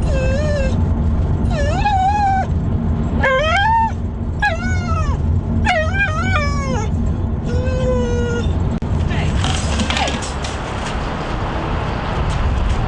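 Small dog whining, about six separate rising-and-falling whimpers over the first eight seconds, over a steady low hum. The dog is one that becomes shaking and terrified in the car.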